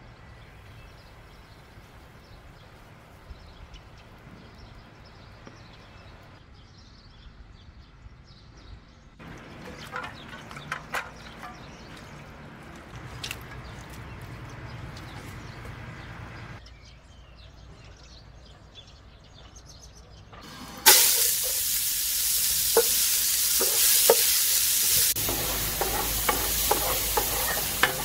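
A quiet stretch with a few scattered clicks, then about 21 seconds in a sudden loud, steady sizzle starts as pieces of lamb hit hot fat and fry. Stirring clicks and scrapes sound through the sizzle.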